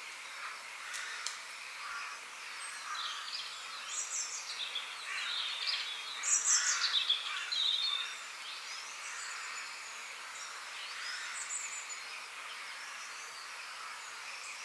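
Several birds chirping and calling, most densely about halfway through, over a steady hiss of forest background.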